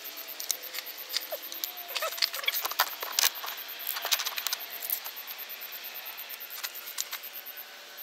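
Irregular light clicks and metallic clinks of hand work as a new ignition coil pack is fitted onto a 1.8 L engine's valve cover, most of them in the first five seconds and only a few near the end.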